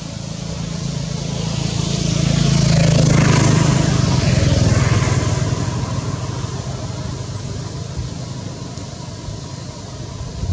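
A motor vehicle passing by, its engine hum growing louder to a peak a few seconds in, then fading away.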